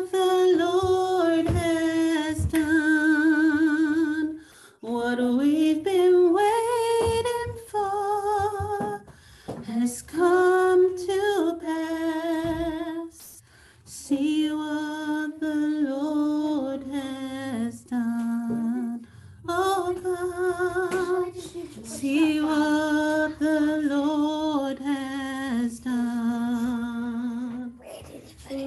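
A woman singing a worship song solo and unaccompanied, in held notes with vibrato, in phrases of a few seconds with short breaks between them.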